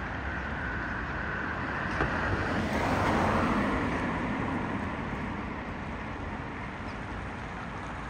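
A road vehicle passing by: a swell of noise that builds to a peak about three seconds in and then fades away.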